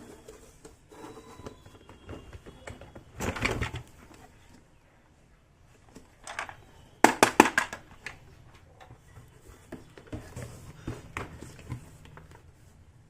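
Small toy kitchen pieces and their packaging being handled: scattered light clicks and taps, a short rustle about three seconds in, and a quick run of sharp clicks about seven seconds in.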